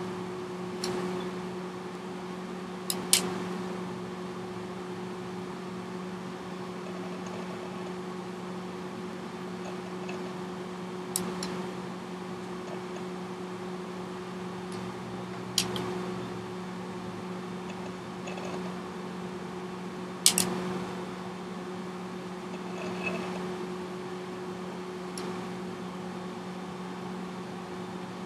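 A new Sharp TV's set itself clicking, not its speakers: sharp, mouse-click-like clicks at irregular intervals several seconds apart, one of them doubled about three seconds in. Under the clicks runs a steady low hum.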